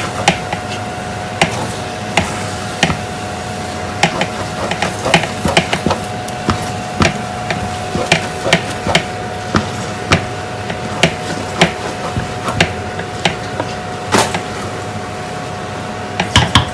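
Wooden spoon stirring a thick potato leaf stew in a large aluminium pot, knocking irregularly against the pot's sides and bottom, over a steady faint hum.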